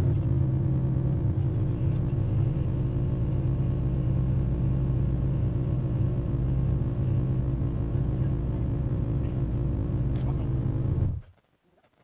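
Yamaha Rhino side-by-side's engine idling steadily with a low rumble. It stops abruptly about a second before the end.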